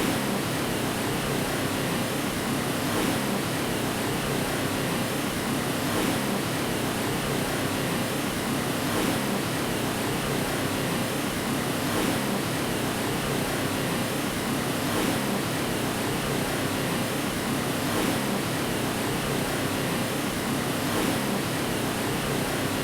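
Steady white noise, an even rushing hiss weighted toward the low-mid range, with a faint swell about every three seconds, as if a short recording is looped.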